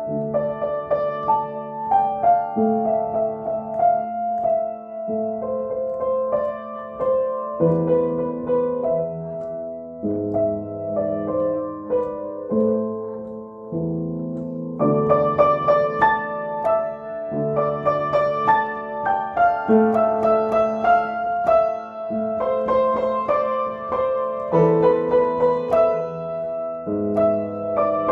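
Upright piano played by hand: a melody over held chords in the middle register, with a softer passage that swells louder and fuller about fifteen seconds in.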